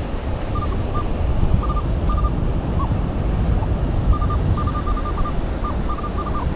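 Short beeps at one high pitch from a Minelab Manticore metal detector, in scattered groups, as it sounds off on a buried target. Under them runs a steady low rumble of wind on the microphone and surf.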